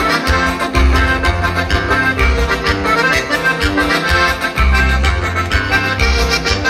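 Live band music over a concert sound system: an accordion leads an instrumental break over a steady bass line, with no singing.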